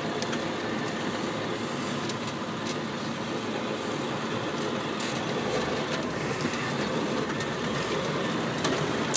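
Vehicle driving on a rough dirt forest track, heard from inside the cab: a steady noise of tyres on dirt and gravel, with a few light rattles from the body.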